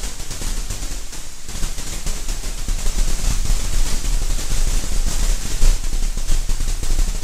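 Electric crackling and sizzling, like a lightning or high-voltage arc sound effect, with a low rumble underneath; it gets a little louder about a second and a half in.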